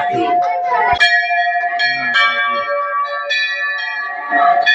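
Hanging brass temple bells struck one after another, about once a second, their clear tones ringing on and overlapping.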